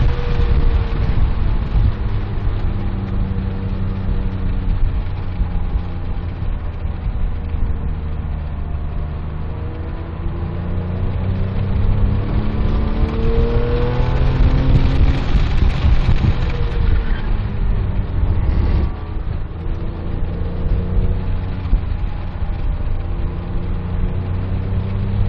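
Porsche 997.1 GT3's flat-six engine heard from inside the cabin under track driving. Its revs climb and fall repeatedly as the car accelerates and slows for corners, with a long rising pull in the middle and a brief drop-off about three quarters through, over a steady low road and wind rumble.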